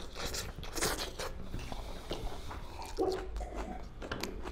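Close-up eating noises of people eating duck curry and rice by hand: chewing and biting into the meat, with scattered small wet smacks and clicks.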